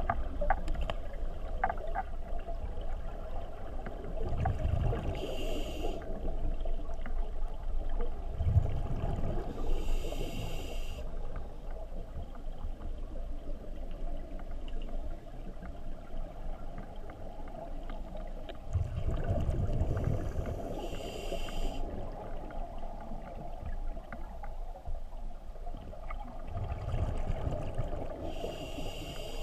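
Scuba diver breathing through a regulator underwater: four slow breath cycles, each a low bubbling rumble followed by a higher hiss, spaced several seconds apart.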